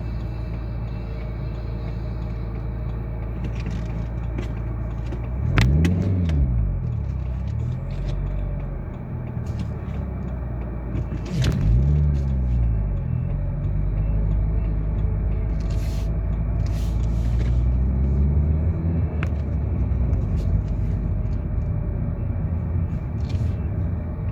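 Road vehicle engine running with a steady low hum. Twice, about six and twelve seconds in, the engine note swells up and back down.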